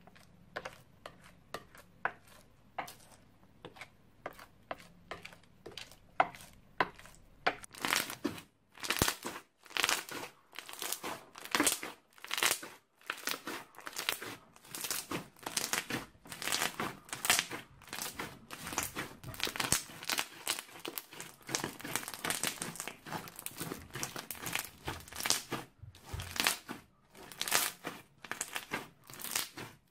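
Runny slime being stirred with a spoon in a glass dish, giving faint soft clicks. About eight seconds in, hands squeeze and knead crunchy slime, and it crackles loudly and densely.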